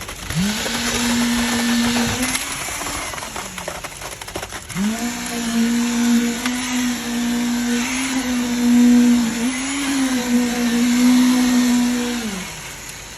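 A high-speed motor whining at a steady pitch. It spins up just after the start, winds down a little after two seconds, spins up again near five seconds, runs steadily, and winds down near the end.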